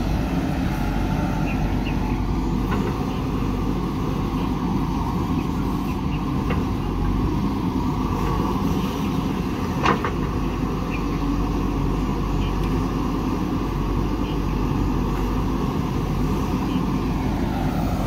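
JCB 3DX backhoe loader's diesel engine running steadily under load as the backhoe arm digs soil and swings it over to a dump truck. A single sharp knock near the middle is the loudest moment, with a few fainter clicks elsewhere.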